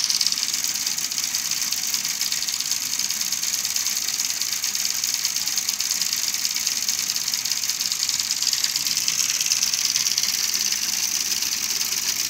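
Homemade model truck running: a steady, high-pitched mechanical whir with a fast, fine rattle and no pauses.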